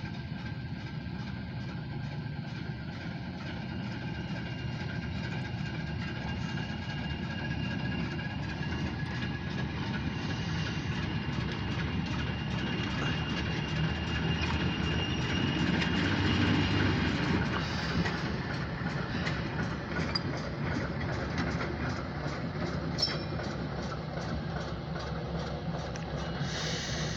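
Diesel locomotive running light, without cars, its engine droning steadily and growing louder until about halfway through as it passes, then easing off.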